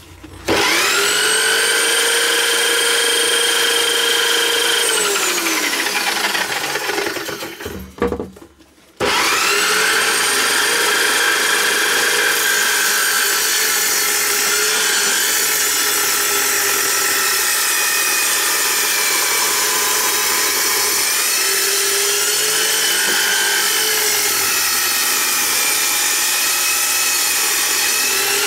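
Electric drill spinning a circular saw blade in a homemade table saw. It starts up with a rising whine, winds down and stops after about six seconds, then starts again and runs steadily as a wooden panel is fed through the blade. The pitch dips briefly a few times as the blade takes the load of the cut.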